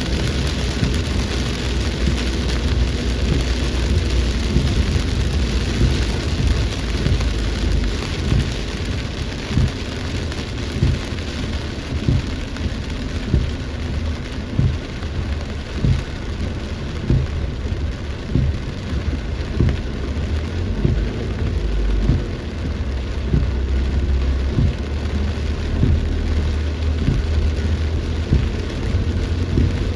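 Heavy rain in a storm: a steady loud hiss of rain with frequent drops striking close by as short knocks, over a low rumble that swells and fades.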